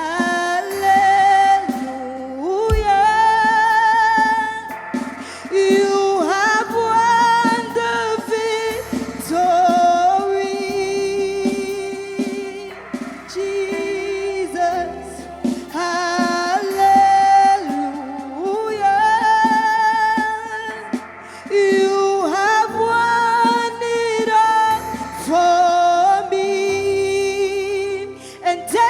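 Gospel praise and worship music: singers hold long sustained notes with vibrato over steady bass chords.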